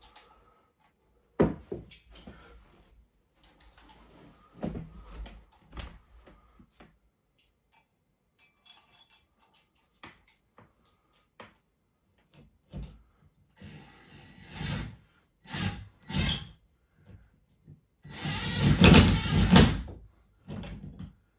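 Cordless drill boring into the ceiling for about two seconds near the end, the loudest sound. Before it come a sharp knock early on and several shorter clunks and handling noises.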